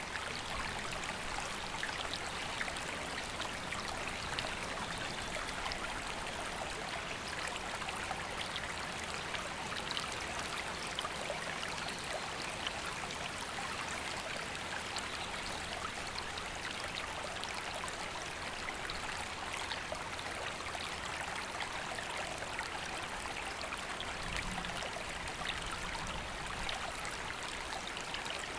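Woodland river flowing, a steady rushing and babbling of water over stones.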